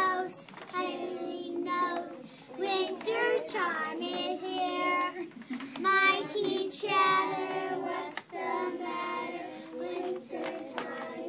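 A group of young children singing a song together in sung phrases with short breaks between them.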